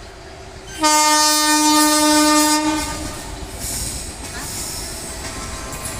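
Indian Railways locomotive horn sounding one steady blast of about two seconds, beginning just under a second in. It is followed by the steady running noise of the train on the track.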